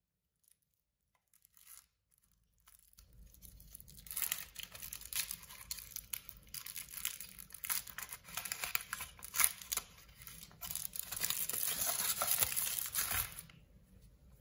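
Kinder Surprise egg's aluminium foil wrapper being peeled off and crumpled. It is a dense crinkling and tearing full of small crackles that starts about three seconds in and stops shortly before the end.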